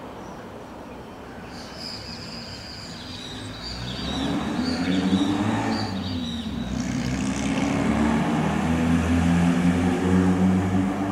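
A motor running, growing louder about four seconds in and staying loud. A run of short high chirps sounds over it in the first half.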